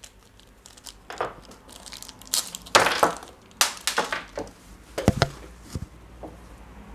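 Small plastic bags holding 8 mm steel linear bearings crinkling in the hand, then set down on a wooden table. The bags give a string of sharp, irregular crackles, and there is a dull knock about five seconds in.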